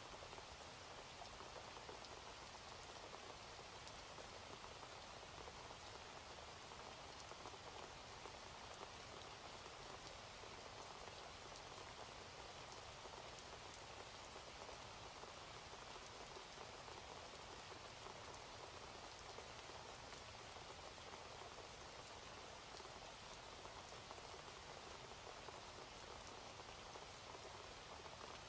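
Steady rain falling: a soft, even hiss with faint scattered drop ticks.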